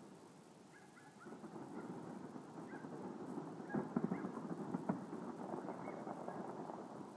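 Distant fireworks: a continuous rumbling crackle that swells about a second in, with a cluster of sharper pops around the middle.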